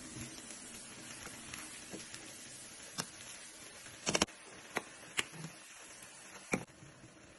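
Stir-fry of noodles, vegetables and chicken sizzling faintly in a pan as a slotted spatula tosses it, with several sharp knocks of the spatula against the pan, the loudest a little past halfway.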